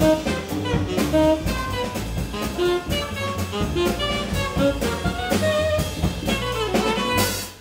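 Live jazz quartet playing: saxophone lines over piano, upright double bass and drum kit. The band lands a loud accented hit just after seven seconds in, and the music then falls away.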